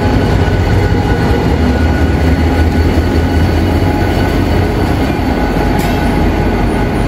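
Diesel locomotive of a long-distance passenger train running steadily at a station, a loud, deep, even drone.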